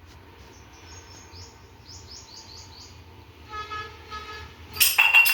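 A small bird chirping in a quick run of short high calls, then a horn tooting twice, and near the end a loud, bright clatter with a ringing tone.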